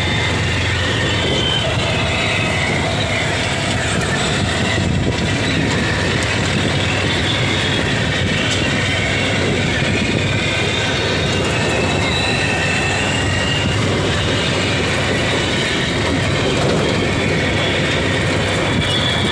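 Motorcycle engine running steadily with road noise, heard from inside the steel sidecar of a moving tricycle.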